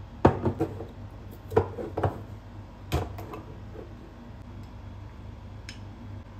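Dishes and cookware clinking and knocking as they are handled: three quick clusters of knocks in the first three seconds, then one faint tick near the end, over a steady low hum.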